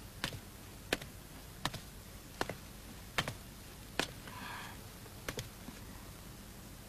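Footsteps on a hard surface: sharp, evenly paced clicks about three every two seconds, stopping about five seconds in.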